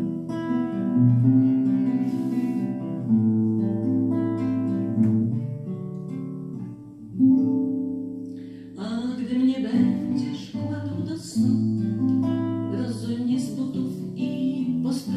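Acoustic guitars playing the slow instrumental introduction to a lullaby-style song, picked notes ringing over low bass notes. About nine seconds in, the playing grows fuller and more strummed.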